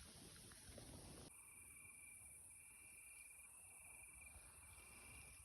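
Faint insect chirping: short trills at one steady high pitch, repeated over and over, starting about a second in.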